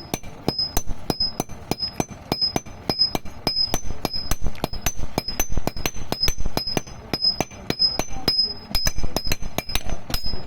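Hand hammers striking iron on an anvil in a fast, steady rhythm of about four to five blows a second, each blow ringing briefly and the rings alternating between two pitches. The rhythm pauses briefly near the end.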